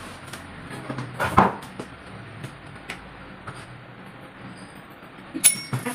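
Scattered knocks and clatters of small objects being handled on a desk, the loudest about a second and a half in and another sharp one near the end.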